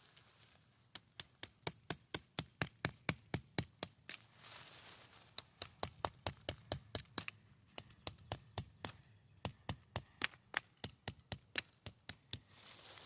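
Quick, sharp clicks or taps, about four to five a second, in three runs with short pauses between them.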